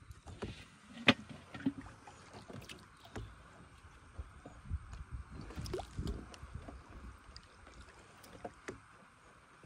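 Water sloshing against the hull of a small wooden boat under way, with scattered light clicks and knocks, the sharpest about a second in and a few duller thumps around the middle.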